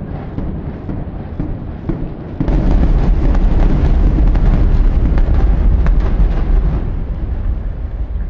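Demolition implosion of the Park Avenue Hotel tower: a low rumble, then about two and a half seconds in a sudden loud, deep rumbling filled with rapid crackling bangs from the charges and the collapsing building, easing off near the end.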